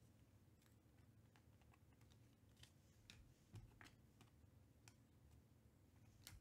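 Faint, scattered clicks of Panini Prizm chrome baseball cards being flipped one at a time through a hand-held stack, against near silence.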